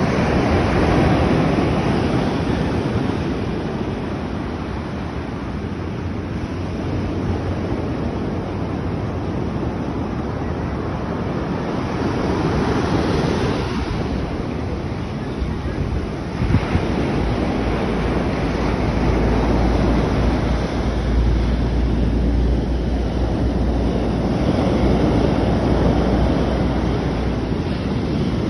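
Sea surf washing onto the shore, swelling and easing in slow waves, with wind buffeting the microphone as a low rumble that grows heavier about halfway through.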